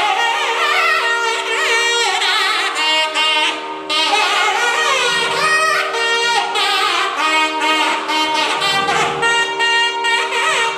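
Nadaswaram playing a Carnatic melody full of sliding, ornamented notes over a steady drone, with a brief pause in the melody about four seconds in.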